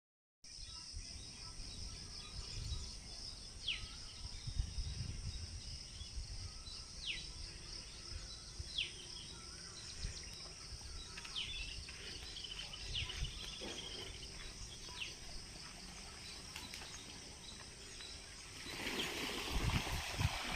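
Outdoor nature ambience: a steady high insect drone, with a bird calling short falling whistles every couple of seconds, over gusty low rumbling. Near the end the sound gets louder and busier.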